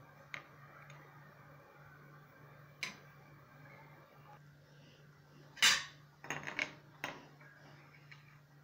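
Metal spoon clinking against an enamel pot holding simmering beef broth: a few short clinks, the loudest about halfway through, followed by a quick cluster of lighter ones, over a steady low hum.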